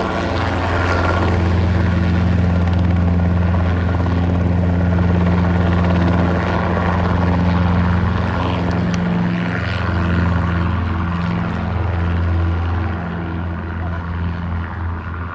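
Helicopter running close by: a steady, loud low drone of rotor and engine that eases off slightly near the end.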